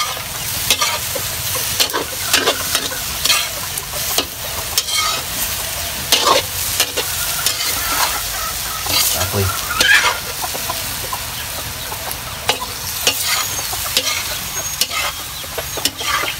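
A metal spatula scraping and clattering against a large metal wok as noodles with meat and vegetables are stir-fried, over a steady sizzle.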